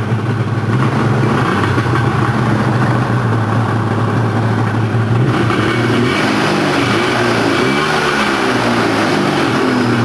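1991 Polaris Indy 650 snowmobile's three-cylinder two-stroke engine, fitted with triple pipes, running at a steady, slightly low idle; noisy. Its note wavers somewhat in the second half.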